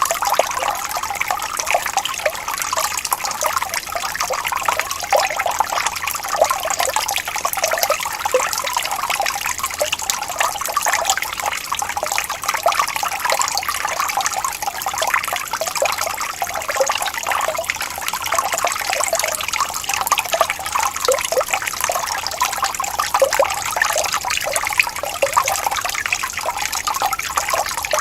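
Stream of running water rippling and gurgling steadily, a dense busy splashing with no pauses.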